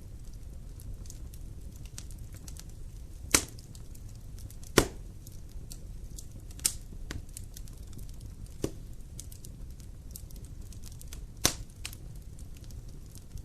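Wood fire in a fireplace crackling: a low steady rumble of flames under constant small ticks, with about five sharp, loud pops spread through it.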